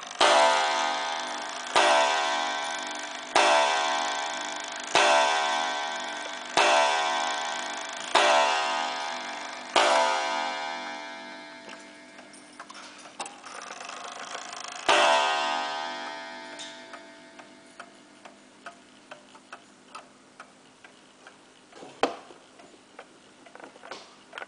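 1874 Waterbury eight-day gingerbread kitchen clock striking seven times, about one and a half seconds apart, each stroke ringing out and dying away. After a pause it strikes once more while its hands are being turned. Then its movement ticks steadily, with one sharp click near the end.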